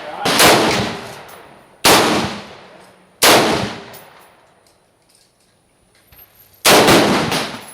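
Smith & Wesson M&P15 AR-15 rifle firing 5.56 rounds one at a time. Three shots come about a second and a half apart, then after a pause of about three seconds another shot, quickly followed by more, near the end. Each report trails off in echo.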